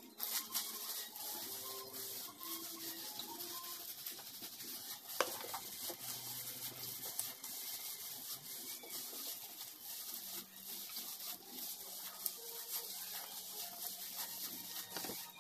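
Gloved hands rubbing hair dye into wet hair: a steady close rubbing and crackling with many small clicks.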